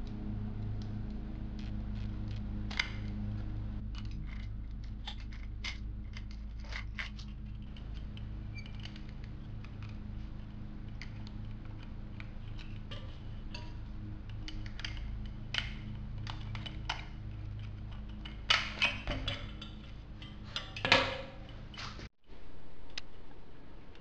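Small metal clicks and clatter of hand work on an e-bike's front wheel, with the V-brake being unhooked and the hub-motor wheel's hardware handled, over a steady low hum. A louder run of clatter comes near the end.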